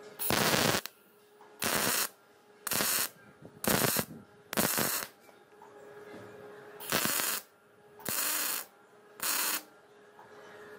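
MIG welder laying short welds on the steel-tube suspension mount: eight bursts of about half a second each with short pauses between, and a faint steady hum in the gaps.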